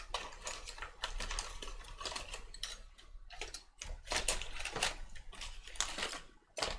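Small screwdrivers from self-repair kits clicking and clattering against each other as they are rummaged through, a busy run of irregular clicks.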